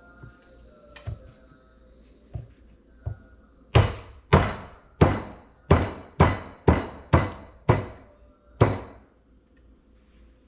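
Garlic cloves being smashed with a metal tool on the countertop: a few light taps, then nine hard knocks over about five seconds, each with a short ring.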